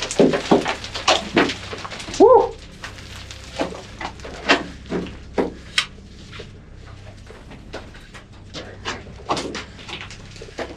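Descent down a rocky mine shaft on a rope: irregular scrapes, knocks and clatters of boots, gear and loose rock against the shaft walls, with a shouted "woo!" about two seconds in.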